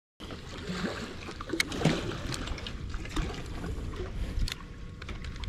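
Water sloshing, with steady low rumble and scattered faint clicks.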